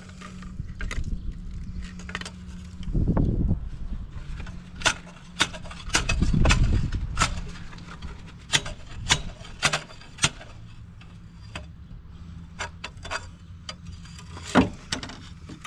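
Hand tools and metal parts clinking and knocking during exhaust manifold removal on a Chevy 5.3 V8: scattered sharp clicks, with two longer low rumbling thuds about three and six seconds in.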